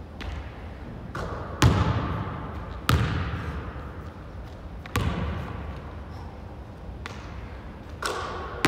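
Basketball bouncing on a hardwood gym floor, about half a dozen separate hits one to two seconds apart, each echoing in the large empty hall. The loudest hit comes about a second and a half in.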